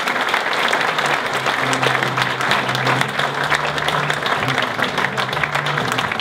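Audience applauding, with music that has a steady bass line coming in underneath about a second in.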